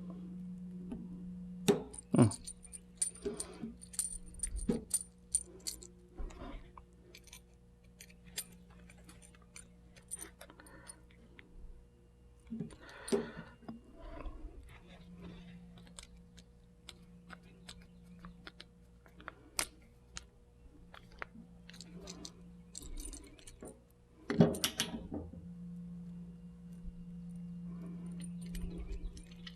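Small metal parts of a plug being handled and screwed by hand: scattered light clicks and metallic clinks of a screwdriver, screws and wire ends on the plug body, with a few louder knocks, over a faint steady hum.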